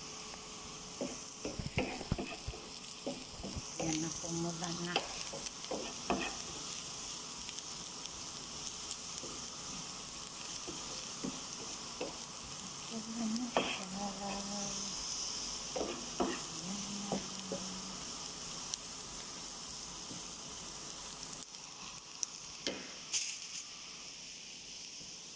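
Sliced onions sizzling in oil in a nonstick frying pan, stirred with a wooden spoon that scrapes and knocks against the pan. The sizzle is a steady hiss, with the spoon's clicks scattered over it and a short cluster near the end.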